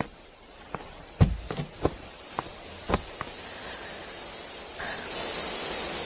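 Crickets chirring steadily in a night-time ambience. About seven soft knocks fall in the first three seconds, the loudest a little over a second in.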